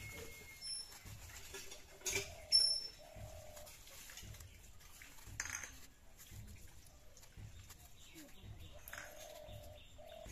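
Curved knife slicing and peeling a brinjal over a steel bowl: soft cuts with a few sharp clicks, the loudest about two and a half seconds in. Hens cluck now and then and small birds chirp in the background.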